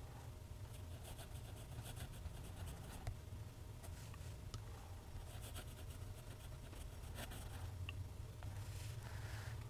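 Steel nib of a TWSBI ECO fountain pen scratching faintly across smooth Clairefontaine paper as cursive is written, in runs of short soft scrapes. A low steady hum lies underneath.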